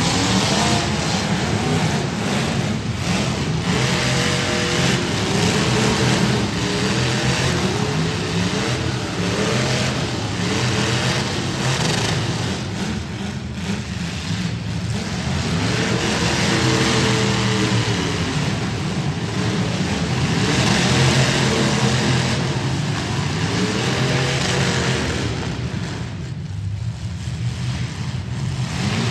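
Several demolition derby car engines running and revving at once, their pitch rising and falling over and over as the cars push and ram each other, with a few short bangs from collisions.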